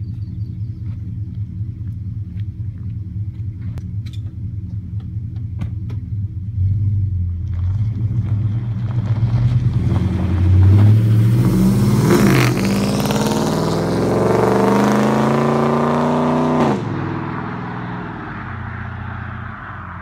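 Ford F-150's 5.4-litre V8 with long-tube headers, X-pipe and Magnaflow dual exhaust: a low rumble, then hard acceleration from about six seconds in, the engine note climbing, dipping about twelve seconds in and climbing again. Near seventeen seconds the note drops off suddenly as the throttle closes, and the sound fades into the distance.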